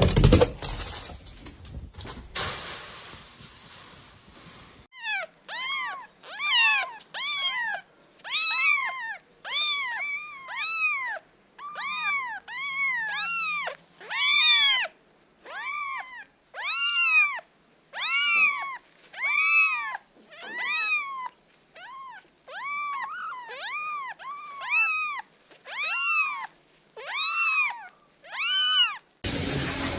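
A domestic cat meowing over and over, about one meow a second, each meow rising and then falling in pitch. The meowing starts about five seconds in, after a fading rustling noise.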